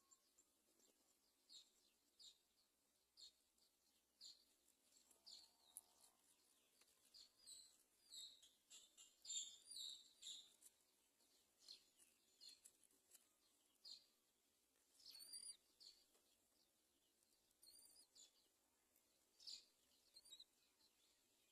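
Faint bird chirps: short, high calls repeated irregularly, about one or two a second, a little louder around the middle.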